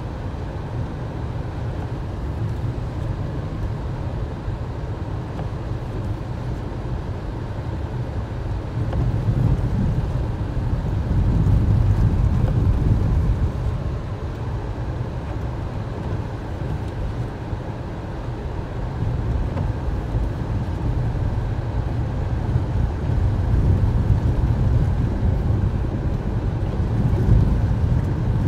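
Low, steady rumble of a car driving on a snow-covered highway, heard inside the cabin: engine and tyre noise that grows louder for a few seconds about a third of the way in and again near the end.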